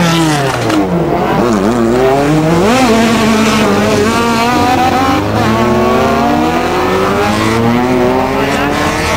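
Competition car engines revving hard and dropping back, the pitch swinging down and up repeatedly with throttle and gear changes, with some tyre squeal, as two rally cars work through a tight hairpin.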